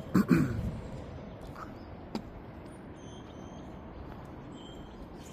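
Faint, short bird chirps over a steady outdoor background hiss, with a brief loud voice-like sound right at the start and a single click about two seconds in.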